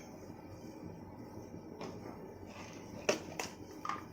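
Ginger and cloves being pounded: a few light, sharp knocks, one about two seconds in and several close together near the end.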